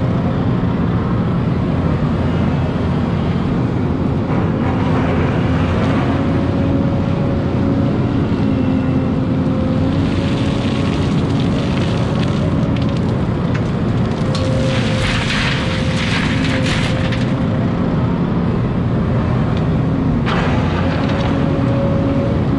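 Hidromek hydraulic excavator's diesel engine running steadily under working load as the boom swings and the bucket digs. A few rushes of loose soil and gravel against the steel bucket come through over the engine, the longest about two thirds of the way in.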